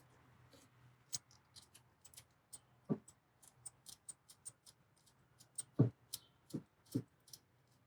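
Irregular metal clicks and a few dull knocks from hand tools fastening the two bolts of the ball-guide cap on a Saginaw power steering gear box.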